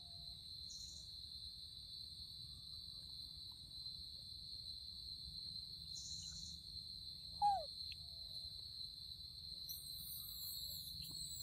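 Steady high-pitched chorus of insects trilling in the forest at dusk, with one brief squeaky call that rises and falls about seven and a half seconds in.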